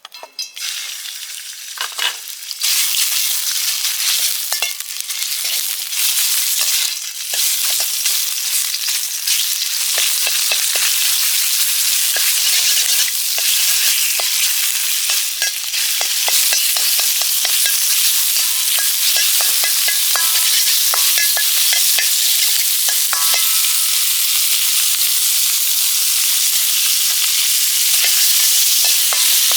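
Food frying in a wok, a dense steady sizzle with many short clicks and scrapes of a spatula stirring it. The sizzle jumps up sharply a couple of seconds in, then holds steady.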